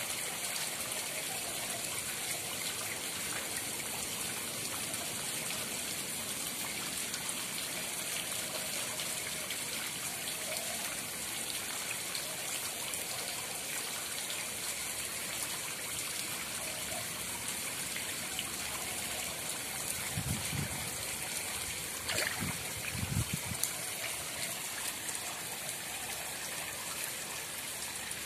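Pond water trickling and splashing steadily, with a few low thumps about twenty seconds in.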